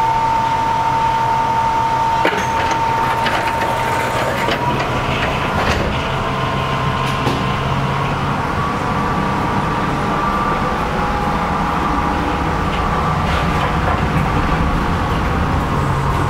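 Electric commuter train standing at a station: a steady whine from its onboard equipment over a low hum, with a few sharp clicks about two, five and six seconds in.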